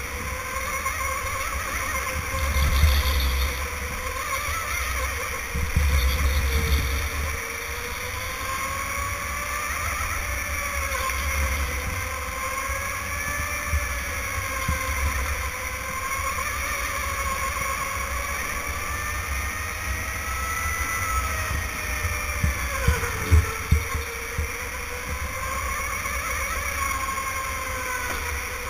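Electric go-kart's motor whining, its pitch rising and falling as the kart speeds up and slows through the corners, over a steady low rumble. A few sharp thumps come about three-quarters of the way through.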